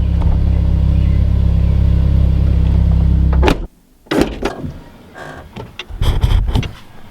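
Honda S2000 engine running at a steady speed, a loud, even low hum that cuts off abruptly about halfway through. It is followed by a few scattered clicks and knocks.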